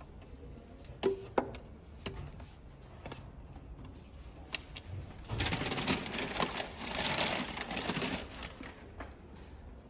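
Magazines being handled and set into a clear plastic display rack, with a few light taps and clicks against the rack. About halfway through comes roughly three seconds of paper rustling.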